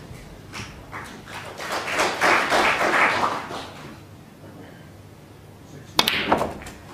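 A short ripple of audience applause and murmur from the snooker arena crowd, then near the end a sharp click of the cue tip striking the cue ball.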